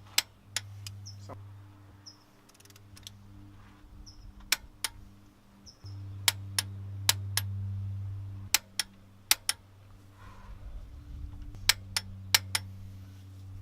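A click-type torque wrench breaking over with sharp single clicks, some in quick pairs, as the cylinder-head bolts on a BMW E36 engine are brought to torque. A low hum comes and goes underneath.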